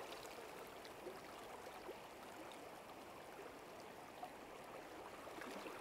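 Faint, steady rush of river water flowing past, with a few faint ticks and splashes.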